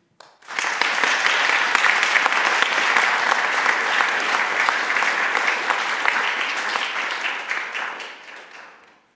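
Audience applauding: dense clapping that starts about half a second in, holds steady, and dies away over the last two seconds.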